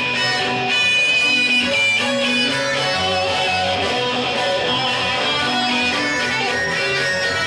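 Guitar played live, with several sustained notes ringing together and the notes changing every second or so.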